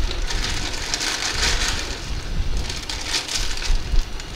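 Plastic instant-noodle packet crinkling and dry noodle blocks crumbling as they are broken by hand into a pan of boiling broth, coming in uneven bursts of crackle.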